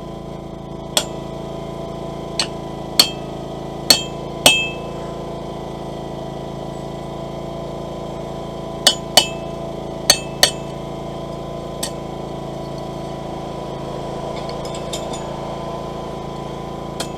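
Hand hammer striking a punch driven into hot steel on the anvil, about ten sharp ringing blows in two bursts with a pause between, punching a hole through from the back so the slug will drop out. A steady hum runs underneath.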